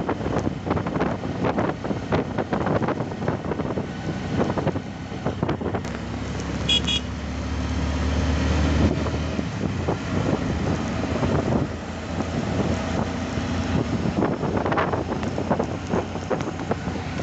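Road traffic heard from a moving vehicle, with wind buffeting the microphone. A short high-pitched horn sounds a few quick times about seven seconds in, and a low engine rumble swells and fades around eight seconds in as a vehicle passes.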